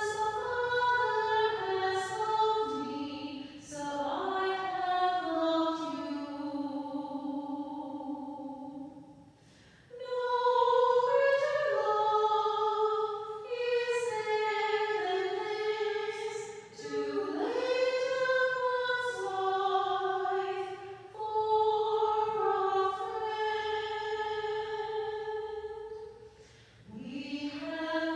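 Choir singing slow sacred music, in long held phrases with brief breaks between them.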